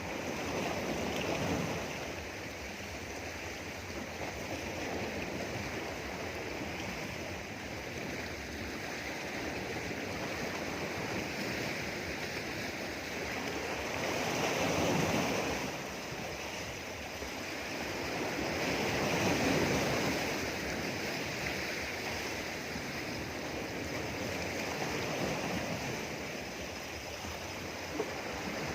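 Sea waves washing against rocks: a continuous rush of surf that swells louder three times, about a second in, midway and a few seconds later.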